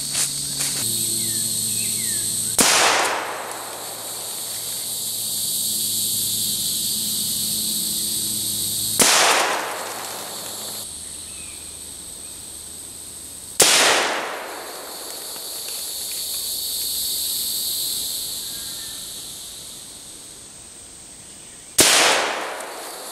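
Four rimfire magnum rifle shots, from a .17 HMR and a .22 WMR, spaced several seconds apart, each a sharp crack that trails off briefly as canned goods are hit and burst. Crickets trill steadily underneath.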